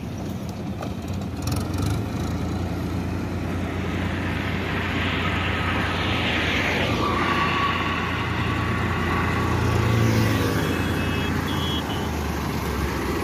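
Powertrac Euro 50 tractor's diesel engine running steadily as the tractor drives with its rotavator, growing louder as it comes closer.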